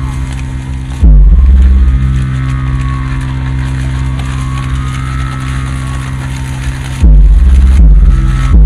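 Electronic sound-design soundtrack of a building projection-mapping show, played over loudspeakers: a steady low drone, broken by a sudden heavy bass boom about a second in and another near the end, followed by a quick run of stuttering low hits.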